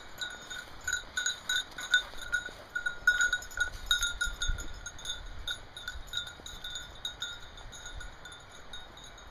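Hunting dog's collar bell ringing in quick, uneven strokes, several a second, as the dog runs. It is louder in the first half and a little fainter toward the end.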